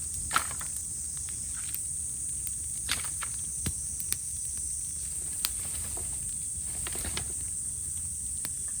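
Cicadas droning steadily in a high, even hiss, over a bamboo fire crackling with scattered sharp snaps and pops, the loudest about half a second in.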